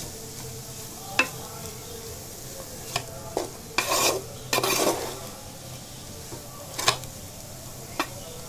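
A spatula stirring and scraping vegetable Maggi noodles around a steel pot, with sharp clinks against the metal and two longer scrapes about four seconds in, over a faint sizzle of the noodles still on the heat.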